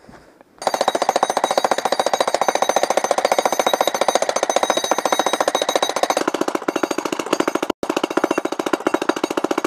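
Electric jackhammer breaking concrete, starting up about half a second in and then hammering at a rapid, steady rate. It cuts out for a split second about three quarters of the way through.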